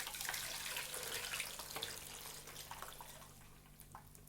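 Blended lemon juice poured through a sieve into a bowl, splashing and trickling, then tapering off over the last couple of seconds.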